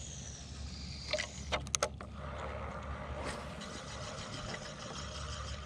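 Quiet steady low rumble with a few small sharp clicks from a spinning rod and reel being handled, a couple about one and a half seconds in and one more near the middle.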